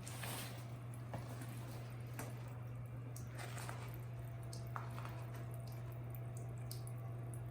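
Water trickling and dripping in a small aviary waterfall and stream, with scattered little splashes, under a steady low hum.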